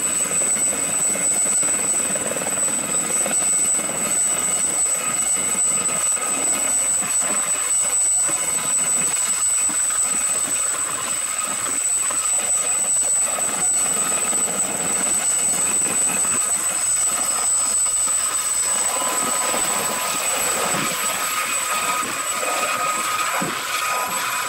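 Aérospatiale Gazelle SA341F2 helicopter running on the ground: the Turbomeca Astazou IIIC2 turbine gives a steady high whine over the rotor noise. About three-quarters of the way through, a second whining tone comes in as power comes up and the helicopter lifts off.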